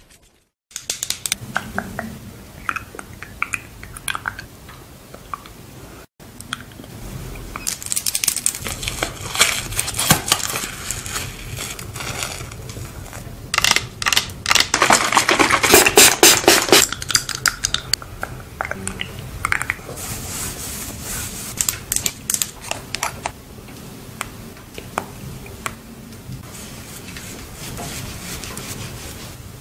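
Close-miked ASMR trigger sounds: long acrylic nails tapping and scratching on plastic skincare bottles, along with hand and brush rustles, as rapid irregular clicks and scratches. The clicking is densest and loudest in the middle, and there are two brief silent breaks near the start.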